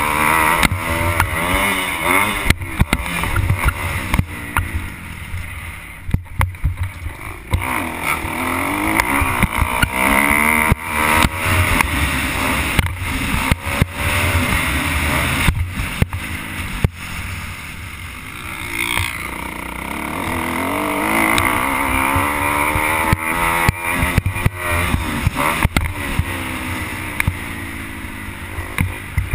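Motocross bike engine revving up and down over and over as it is ridden around a dirt track, heard from a helmet-mounted camera with wind noise and frequent knocks and clicks.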